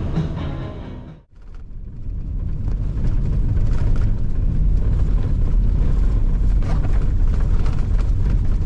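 A vehicle running and driving on a snowy road, a steady low rumble of engine and road noise that comes in after a brief cut about a second in and holds steady.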